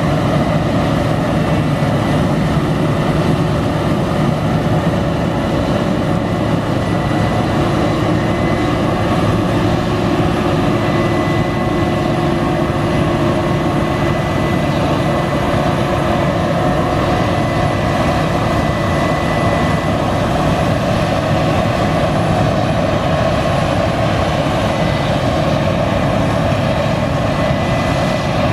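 Diesel engine of a farm machine running steadily under load, with a faint steady high whine over the engine.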